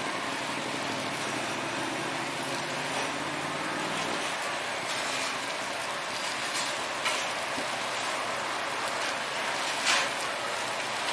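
Busy open-kitchen and street-front ambience: a steady hiss of fans and cooking. A low engine-like rumble fades after the first few seconds, and two sharp clinks come later, the second the loudest.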